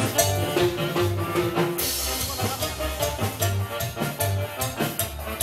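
Live Latin dance band playing: drum kit and hand percussion keep a steady beat over bass and pitched melody notes, with a cymbal crash about two seconds in.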